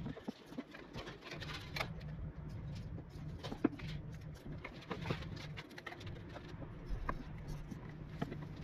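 Engine oil glugging out of a tipped plastic quart bottle straight into a motorcycle's oil-tank filler, with small irregular clicks and ticks over a faint steady hum.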